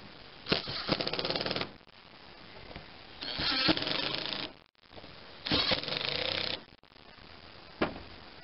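Cordless impact driver running in three short bursts of about a second each, hammering bolts on a small-engine intake manifold and carburetor assembly. A single sharp click follows near the end.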